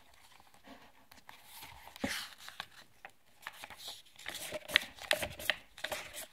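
Paper book pages rustling and slapping as a page is flipped quickly back and forth, with a run of sharp paper snaps that grows faster and louder in the second half.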